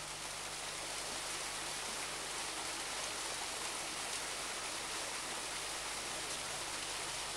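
Steady rushing noise with a faint low hum beneath it, a little louder after about a second.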